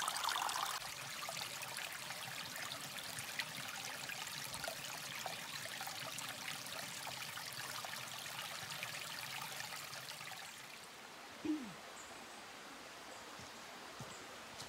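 Water trickling and splashing over mossy rocks in a small mountain stream, a steady hiss that drops away after about ten seconds. About eleven and a half seconds in there is one short, low sound that falls in pitch.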